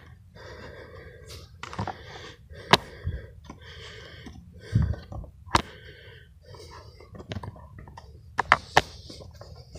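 Footsteps crunching through dry leaf litter at a walking pace, about one step a second, with several sharp snaps or knocks among them.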